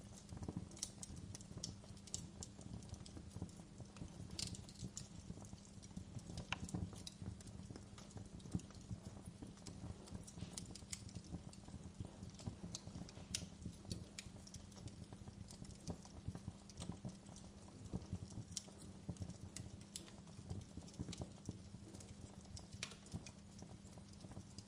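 Wood fire crackling in a fireplace: irregular sharp pops and snaps at an uneven pace over a steady low rumble.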